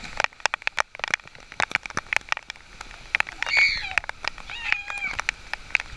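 Heavy rain, with drops striking close to the microphone as many sharp, irregular ticks. A few short, high-pitched excited calls from swimmers come through about midway.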